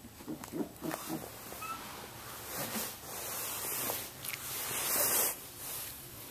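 Samoyed puppies, 26 days old, making small noises as they play, with two short rising squeaks in the first couple of seconds. A louder rustling follows, loudest about five seconds in, as a hand reaches in and handles a puppy.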